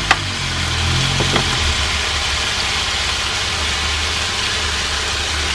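Pork pieces frying steadily in a stainless steel pan, a continuous sizzle over a low, steady hum. A few light clicks come near the start.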